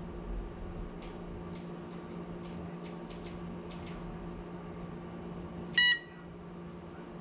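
One short, loud electronic beep about six seconds in, from a small FPV racing drone's beeper while it sits on the floor before takeoff, over a steady low hum and faint ticks.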